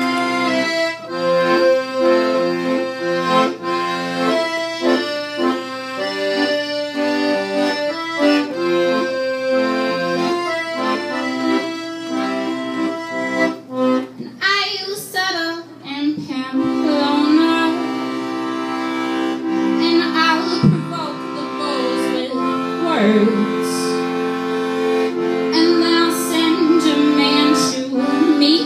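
Piano accordion played solo: a rhythmic run of changing chords over a moving bass for about the first half, then long held chords with a wavering, swooping line above them.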